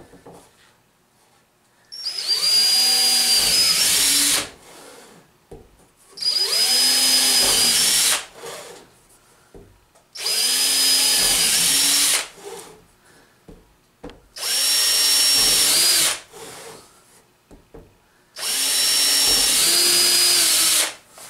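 DeWalt 18V cordless drill boring pilot holes through a Teflon runner strip into wood: five runs of about two seconds each, roughly every four seconds, each a steady motor whine, with short pauses between holes.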